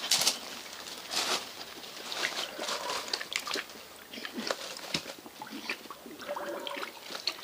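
Water sloshing and splashing in a shallow plastic tub as a dog paws and dunks its head after live fish, in irregular splashes and slaps.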